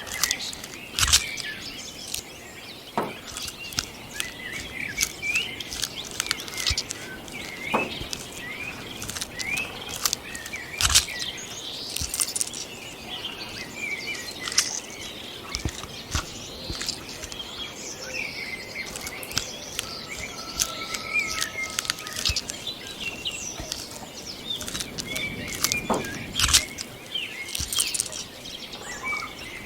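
Outdoor wildlife ambience: many short, high chirps and calls in quick succession, with scattered sharp clicks and rustles over a light background hiss.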